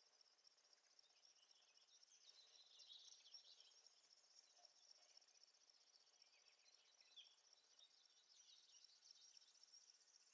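Faint field ambience: a steady high-pitched insect trill, like crickets or bush-crickets, with scattered faint chirps mixed in.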